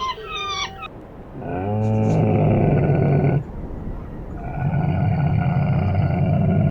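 Cow mooing twice, two long low calls of about two seconds each, the first starting a little over a second in. High chirping calls fade out just before the first moo.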